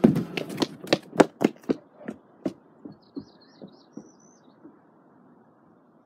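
Quick running footsteps in boots on wooden porch steps and decking, about four thuds a second, fading away within the first few seconds. A bird chirps a short trilling phrase in the middle.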